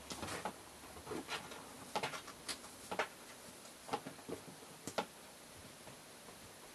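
Light, irregular taps and clicks, two or three a second, as a cat pounces on and bats a small toy across a rug and tatami floor; the tapping stops about five seconds in.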